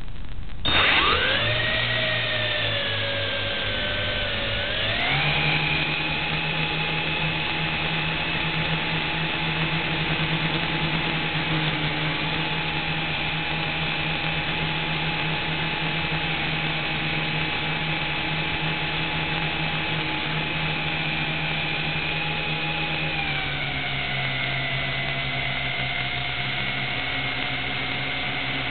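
Tarantula X6 hexacopter's motors and propellers whining, heard through its onboard camera. The motors spin up sharply about a second in and rise in pitch at about five seconds as they throttle up for takeoff. They hold a steady whine, then drop slightly in pitch a few seconds before the end.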